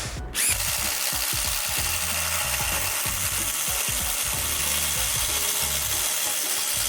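Cordless impact driver boring a spade bit through wood, its impact mechanism hammering continuously under load.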